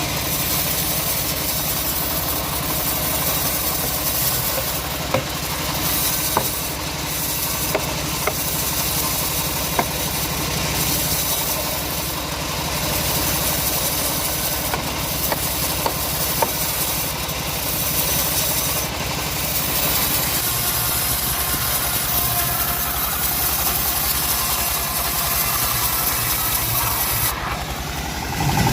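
An engine running steadily at an even speed, with scattered sharp clicks.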